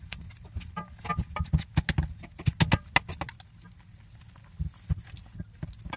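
A spoon and a fork knocking and clicking against an aluminium pot while mashing boiled potatoes in their gravy. The knocks come in a quick, dense run in the first half, then more scattered.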